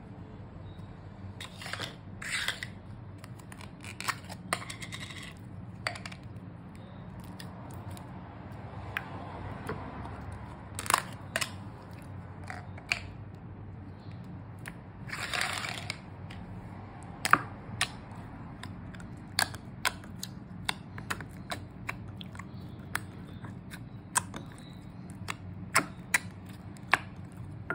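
Slime with water being squished and kneaded by hand in a bowl: a string of sharp wet clicks and pops, with a few longer squelching stretches, over a faint steady hum.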